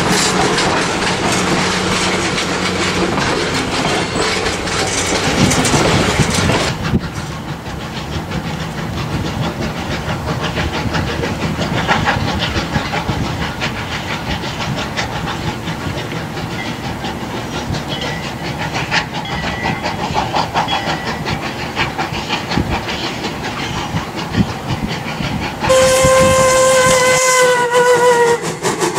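Passenger coaches rolling past with wheels clicking over rail joints, then the train running quieter and farther off. A little before the end, the steam locomotive's whistle blows one long blast that sags slightly in pitch as it ends.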